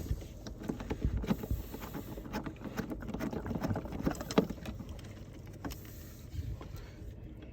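Hands unscrewing a plastic RV city water connector fitting: irregular small clicks, scrapes and rattles of plastic parts being turned and handled.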